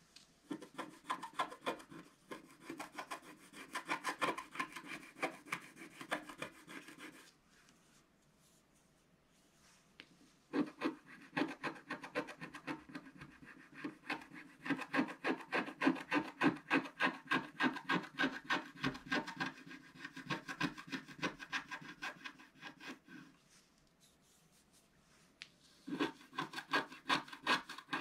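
Wooden scratch stick scraping the black coating off scratch-art paper in quick, rapid strokes. It comes in three spells, with pauses of a few seconds after about 7 seconds and again after about 23 seconds.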